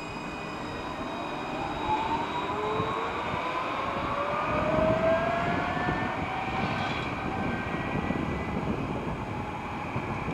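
Alstom Citadis tram pulling away: its electric traction drive whines in two tones that rise steadily in pitch for about five seconds as it accelerates, then level off, over a broad rumble.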